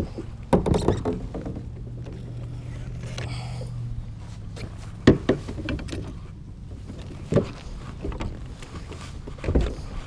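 Knocks and bumps of gear and feet against a plastic fishing kayak's hull as someone moves about standing in it. There are sharp knocks about half a second in, about five seconds in and about seven and a half seconds in, over a low steady hum that lasts through the first four seconds.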